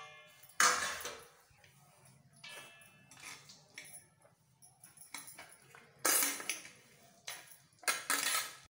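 Chopped dry fruits and nuts tipped and scraped off a plate into a large metal pan, in short rustling, rattling bursts: one about half a second in, then several more from about six seconds to near the end, with quiet between.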